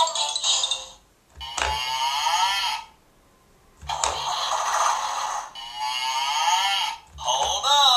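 Fisher-Price Little People Tow 'n Pull Tractor's electronic sound chip playing short sound clips with wavering, gliding pitch, set off three times with brief pauses between. Each clip starts with a soft plastic knock from the press that triggers it.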